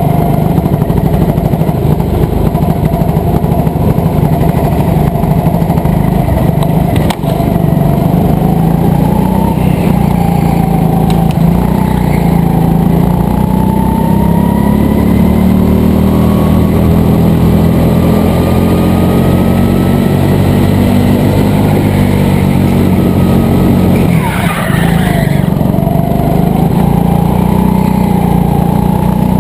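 Go-kart engine heard from the driver's seat while racing, its pitch rising and falling through the corners and straights. A sharp knock comes about seven seconds in, and a brief noisy burst about twenty-four seconds in.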